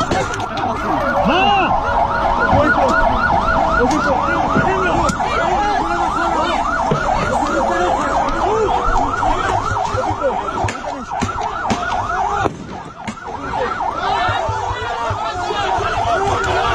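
Ambulance siren in a fast yelp, its pitch sweeping up and down about three times a second, dropping away briefly about twelve seconds in and then coming back. Voices underneath.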